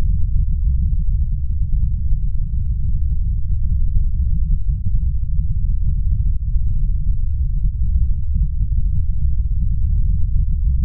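Steady deep rumble, a low-pitched roaring sound effect with faint crackles over it, laid under an animated fireball.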